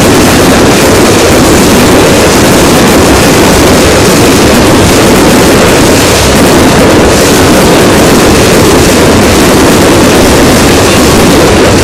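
Continuous barrage of fireworks going off together, crackling gold bursts so loud and dense that the sound overloads the phone's microphone into a steady, distorted roar with no separate bangs.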